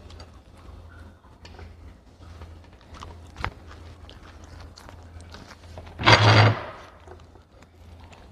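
A Bedlington terrier eating cubes of homemade duck terrine treat from a plate: scattered small clicks and chewing noises over a faint steady hum. A little after the middle comes one loud, noisy burst lasting about half a second.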